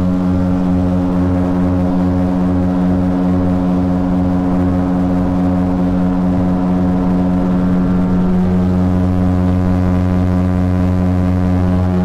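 Small propeller plane's engine droning steadily as heard from inside the cabin, climbing out just after take-off. Its low beating pulse evens out about eight seconds in.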